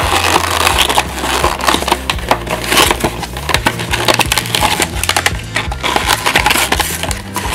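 Cardboard toy box and plastic packaging being torn and crinkled open by hand: a dense run of crackles and snaps. Background music plays underneath.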